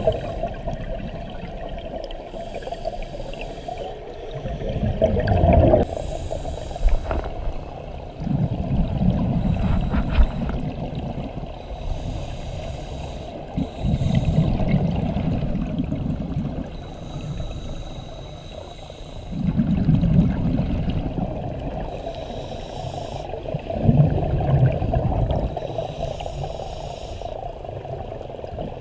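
Scuba diver breathing through a regulator underwater. Each breath is a short hiss on the inhale, followed by a bubbling rumble as the exhaled air leaves, repeating about every five to six seconds.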